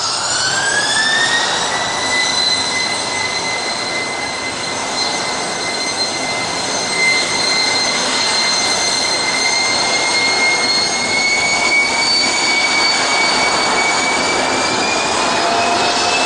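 Jet engines of an Insel Air airliner with rear-mounted engines, taxiing: a steady high whine over a broad rushing noise. The whine rises in pitch over the first second or two, holds, and climbs slowly again in the last few seconds.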